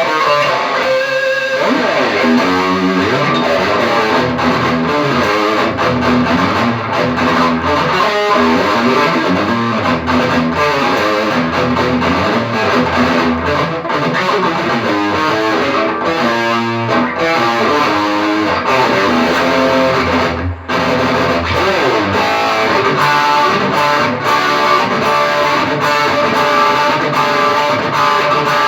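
Electric guitar played through a Mesa Boogie JP-2C tube amp head, a continuous run of notes and chords, as a sound test of the amp after its repair. The playing drops out for a moment about two-thirds of the way through.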